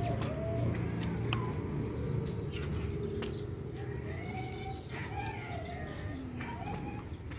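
Roti dough being slapped between the palms, a few soft claps spaced irregularly, with birds calling in short arching calls in the background.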